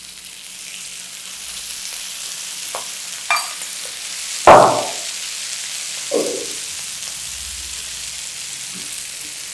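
Oil sizzling around baby potatoes and peas frying in a nonstick pan, a steady hiss that builds a little as fresh oil is poured in. A loud thump about four and a half seconds in and a softer knock a second and a half later.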